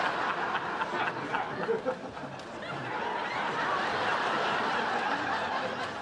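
A studio audience laughing, dipping slightly about two seconds in and swelling again.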